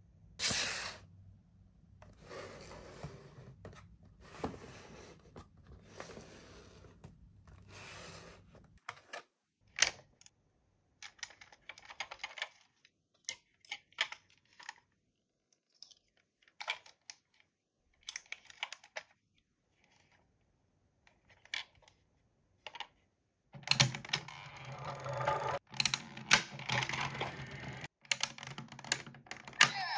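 Toy packaging and toys being handled by hand: soft rustling at first, then scattered sharp clicks and taps, turning into busier, louder handling noise near the end.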